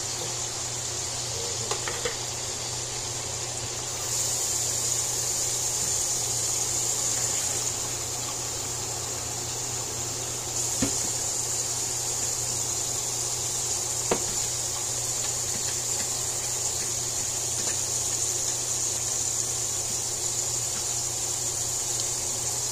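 Chicken in a dark sauce sizzling in an aluminium pot on a gas stove: a steady hiss whose level steps up and down a few times, with a few light clicks of a fork against the pot.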